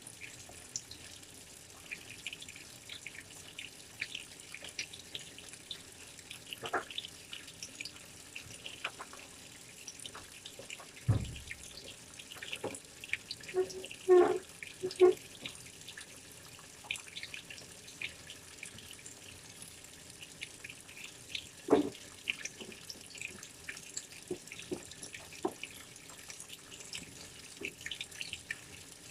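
Water splashing and dripping inside a washing machine during a wash, in many small irregular splashes. A few louder knocks come about 11 s, 14–15 s and 22 s in.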